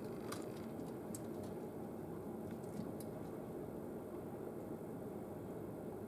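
A few light, sharp taps in the first three seconds as a male downy woodpecker pecks at a suet cake through a wire cage feeder, over a steady low background rumble.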